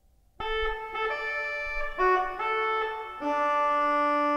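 Pipe organ's tuba stop, the loudest of its reed stops, playing a short phrase of several notes. It enters about half a second in and holds the last note from about three seconds in.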